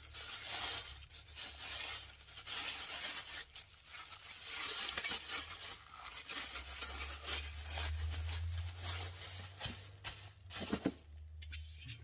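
Clear plastic bag crinkling and rustling as it is pulled off a new engine cylinder, in irregular handfuls, with a few short ticks near the end.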